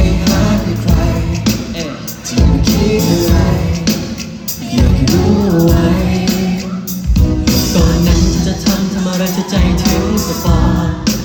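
Thai pop song performed live, with male vocals over a strong bass beat.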